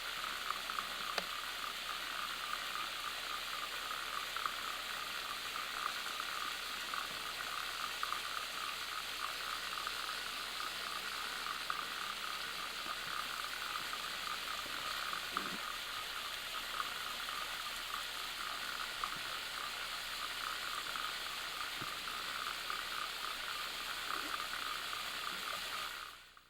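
Waterfall rushing: a steady hiss of falling water that cuts off suddenly near the end.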